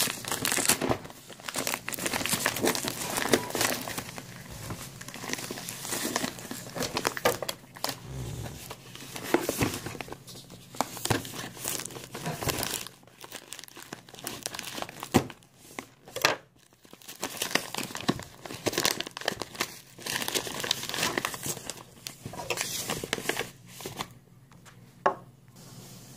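Brown paper and clear packing tape on a parcel crinkling and tearing as it is pulled open, in irregular crackly spurts with a few short pauses.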